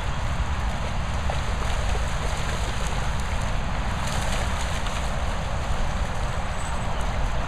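Labradors splashing and running through shallow floodwater, over a steady wind rumble on the microphone and an even hiss; the splashing is loudest about four seconds in.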